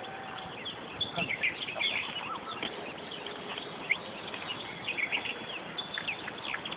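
Small birds chirping: many quick, high, short calls scattered throughout, over a steady background hiss.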